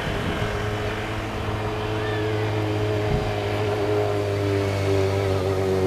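An engine droning steadily in the distance, gradually growing louder toward the end.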